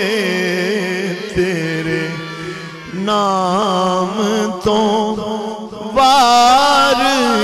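A man singing a Punjabi naat in long, ornamented held notes over a steady held tone underneath. The singing thins out about two seconds in, comes back about three seconds in, and enters louder about six seconds in.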